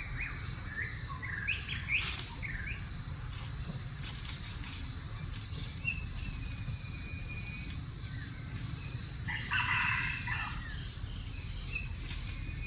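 Outdoor animal calls: a run of short high chirps in the first few seconds, a long thin whistle around the middle, and a louder burst of calls about ten seconds in, over a steady high hiss and low rumble.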